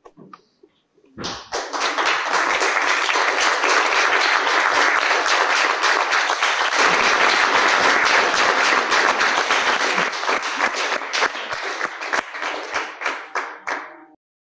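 Theatre audience applauding. It breaks out about a second in, thins to scattered claps near the end and stops.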